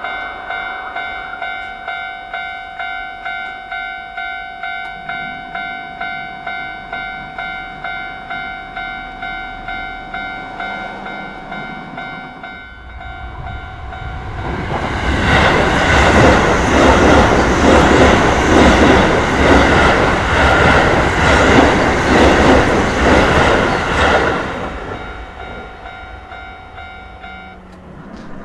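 Japanese level-crossing warning bell ringing in a steady repeated ding, about two strikes a second. About 13 s in, an electric commuter train rushes past loudly for about ten seconds, its wheels clattering, and then fades. The bell stops near the end.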